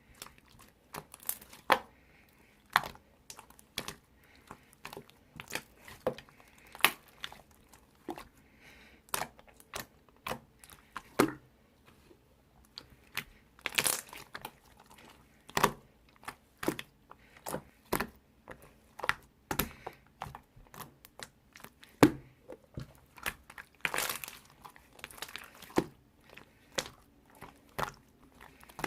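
Blue slime being squished and pressed by hand, giving irregular sharp clicks and pops, one to two a second, with a few louder pops.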